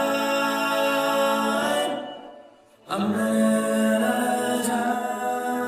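Music: a wordless, a cappella–style vocal chord held for about two seconds and fading out, then a second held vocal chord coming in about three seconds in.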